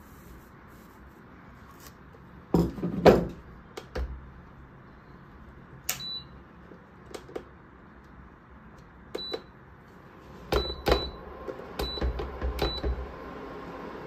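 An induction cooktop's touch buttons beeping: about six short high beeps in the second half as its settings are keyed in, each with a click. A few seconds in, knocks of steel bowls being handled on its glass top are the loudest sound, and near the end a steady hum starts as the cooktop begins heating.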